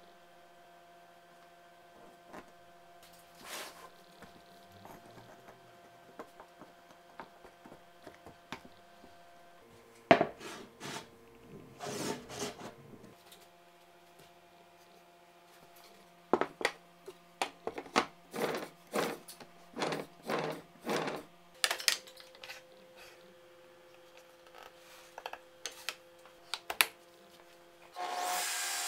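Wooden dowels and plywood rings knocking together in quick clusters of sharp knocks as the dowels are fitted into the rings. Near the end a table saw starts up and runs steadily and loudly.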